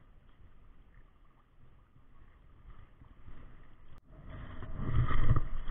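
Sea water sloshing and lapping close to a camera held at the surface by a wading angler, with wind on the microphone. It is faint at first, then a louder low rumble builds near the end.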